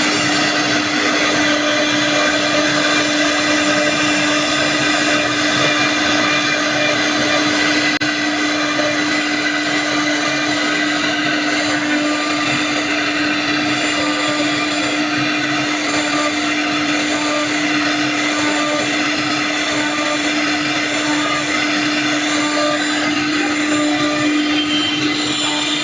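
CNC router spindle running steadily at high speed while it cuts a wooden door or drawer-front panel, a constant whine over the noise of the cut.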